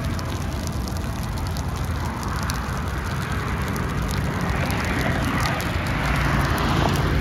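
A burning car and roadside brush crackling and popping. A car passes on the freeway: its road noise swells over the first few seconds, is loudest about five to seven seconds in, then eases off.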